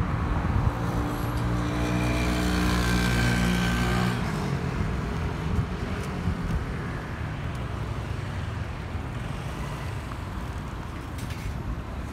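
Roadside traffic noise: a motor vehicle's engine drones at a steady pitch for about four seconds, then stops suddenly, leaving a steady broad rumble.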